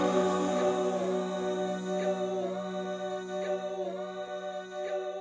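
Closing music: sustained choir-like voices over a held low note, slowly getting quieter.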